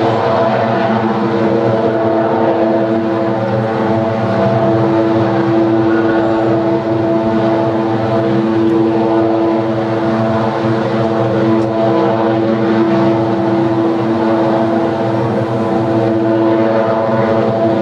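Thermoelectric power plant giving off a loud, steady mechanical drone with a strong low hum. It is an unusual noise for the plant, with no known cause, and it went on all day.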